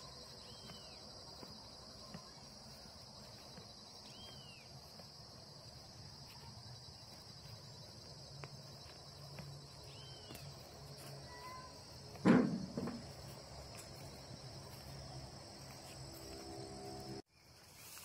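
Insects chirring steadily in a high, even drone, with a few short chirps over it and one brief louder sound about twelve seconds in. The sound cuts off abruptly near the end.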